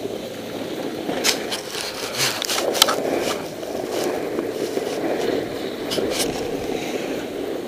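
Snowboard sliding and scraping over icy, hard-packed snow. The board chatters with sharp clicks and knocks, most of them in the first half and a few more later.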